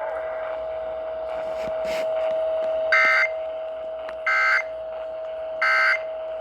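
Emergency Alert System end-of-message data tones on a weather radio broadcast: three short, identical two-tone digital bursts about 1.3 seconds apart, marking the end of the alert. A steady whistling tone runs underneath.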